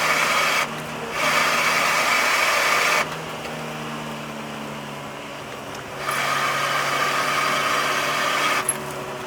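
Nissan S13's engine and road noise heard from inside the cabin while it is driven hard through bends; the sound swells loud for stretches and drops back between them, with the engine note holding fairly steady.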